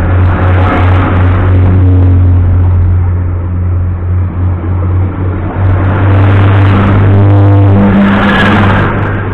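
A Class 180 diesel multiple unit passes close by along the platform, with its underfloor diesel engines running with a steady low hum under the rumble of the wheels. The noise swells as each carriage goes by and is loudest near the end as the last carriage passes, then starts to fall away.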